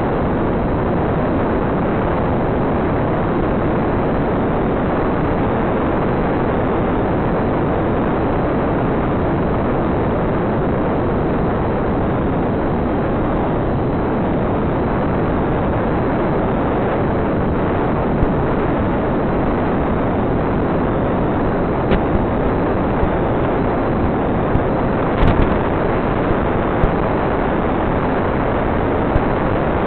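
Steady, even hiss of static with no pitch to it and no engine tone, unchanged as the plane speeds up. A few sharp clicks and crackles come in the last third.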